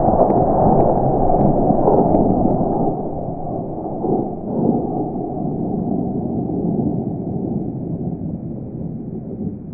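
Rolling echo of a .338 Lapua Magnum rifle shot from a Blaser R8: a loud, deep rumble that slowly dies away over about ten seconds, with a couple of small swells about four seconds in.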